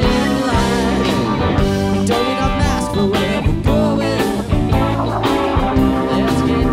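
Live rock band playing an instrumental passage: electric guitars over bass and drums, with a lead line of bent, sliding notes.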